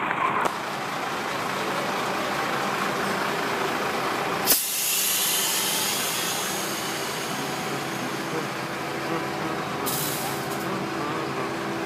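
Diesel engines of a concrete mixer truck and a concrete pump truck running steadily, with a sudden loud hiss of released air about four and a half seconds in and a shorter hiss near the end.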